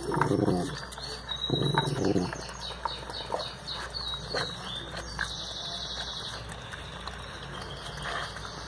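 Dogs licking a block of ice in a plastic dish, with small wet clicking licks. Two brief low vocal sounds come in the first two seconds, and small birds chirp in the background.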